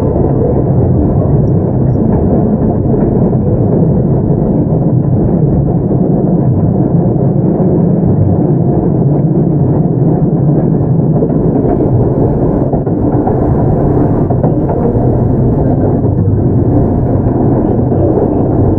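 Keio 8000 series electric train heard from inside the car, running along the line with a steady rumble of wheels on rail and running gear.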